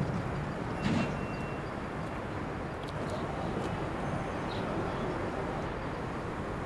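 Steady outdoor city ambience: an even, low rumble of distant traffic, with a brief faint sound about a second in.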